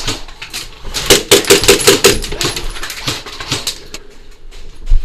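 A rapid burst of airsoft gunfire, sharp cracks about nine a second for about a second, followed by a few scattered clicks.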